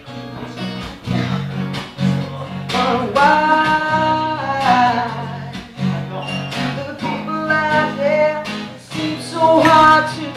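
Acoustic guitar strummed steadily with a singer's voice holding long sung notes over it, a live solo performance.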